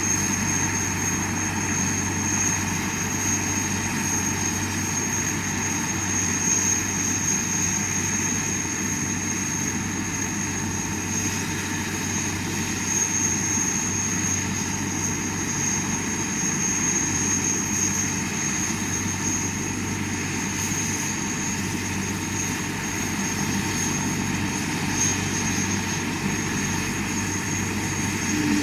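Helicopter engine and rotor running steadily on the ground before takeoff: a constant low rotor drone with a steady high whine over it.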